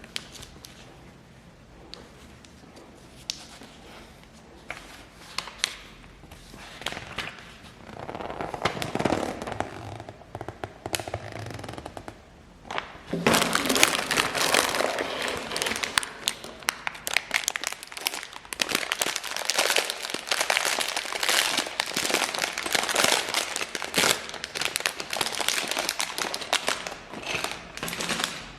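LEGO set packaging being handled: scattered light clicks, then from about halfway a dense, continuous crinkling and crackling of plastic parts bags being handled and opened.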